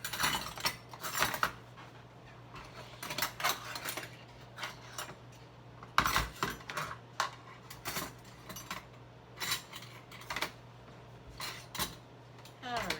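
Dishes and cutlery clattering and clinking as they are handled and set into an aluminum dish rack, in irregular bursts, with a louder knock about six seconds in.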